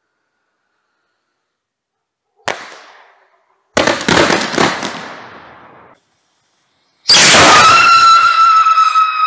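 A sharp firework bang, then a loud crackling burst that dies away over about two seconds. Near the end a whistle rocket sets off a loud, high whistle with several overtones, its pitch sinking slowly as it carries on.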